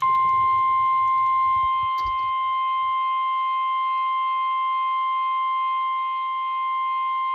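NOAA Weather Radio warning alarm tone (the 1050 Hz tone alert) coming over a weather radio receiver during the weekly test: a single steady, piercing tone that switches on suddenly. A few faint clicks sound under it in the first couple of seconds.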